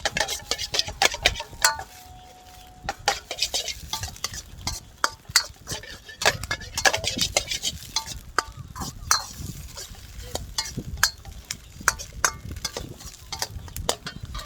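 Food being stir-fried in a Chinese wok: a metal utensil scrapes and clacks rapidly and irregularly against the pan over a steady sizzle.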